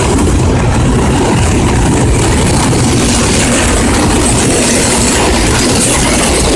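Diesel locomotive running past at close range, its engine giving a steady deep drone, with the maintenance wagons it hauls rolling by on steel rails; the rail hiss grows a few seconds in.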